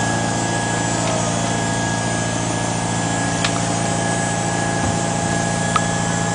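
A fishing boat's engine running steadily, an even mechanical hum, with a couple of faint clicks.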